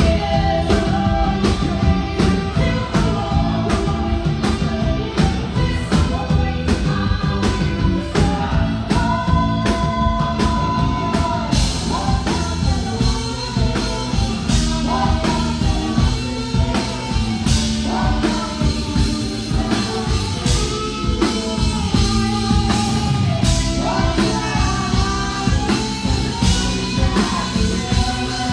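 A rock band playing live: a drum kit, guitars and singing. About a third of the way in, the cymbals come in and the drumming gets fuller.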